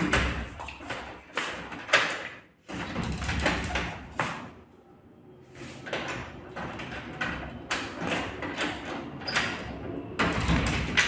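Irregular knocks, thuds and scraping, with a quieter spell about halfway through.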